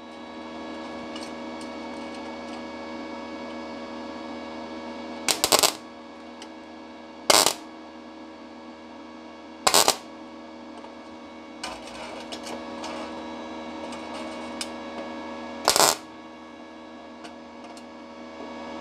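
Parkside PMSG200A1 inverter welder tack-welding 0.4 mm sheet steel with the gas-shielded MAG process: four short arc bursts, each under half a second, a few seconds apart, over a steady hum.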